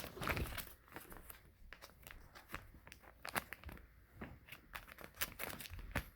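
Plastic bags crinkling and crackling in irregular bursts as they are handled and opened.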